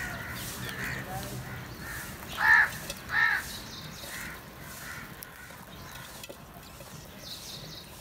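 House crows cawing while feeding in a flock: a series of short caws, the two loudest about two and a half and three seconds in, with softer calls around them that thin out in the second half.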